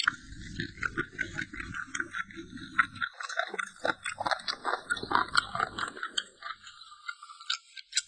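Close-up chewing: wet mouth clicks and soft crunching, busiest for about the first six seconds, then thinning to a few faint clicks near the end.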